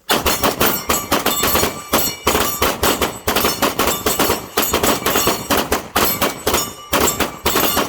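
Dense, continuous metallic clanging and banging: sharp impacts several times a second with a ringing tail, starting abruptly.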